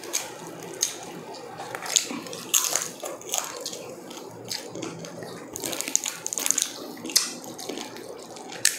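Close-up eating sounds: wet chewing and mouth clicks mixed with the crackle of crispy roast pork belly skin being torn by hand, coming as quick, irregular ticks and snaps.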